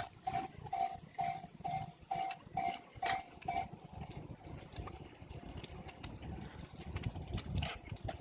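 Japanese railway level-crossing alarm ringing its repeated electronic "kan-kan" tone, a little over two strikes a second, which stops about three and a half seconds in. Low background traffic rumble follows.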